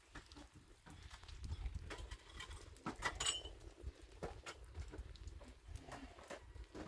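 Irregular knocks and clicks over a low rumble, with a brief high squeak about three seconds in.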